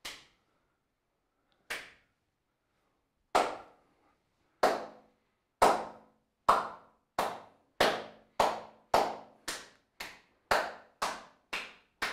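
Slow hand clapping, the 'underdog' slow clap: single big claps start about two seconds apart and steadily speed up to about two a second.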